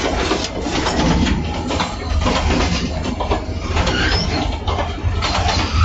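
Narrow-gauge diesel locomotive on the move: a continuous low engine rumble under irregular knocking and rattling from the wheels on the rails and the loose coupler gear.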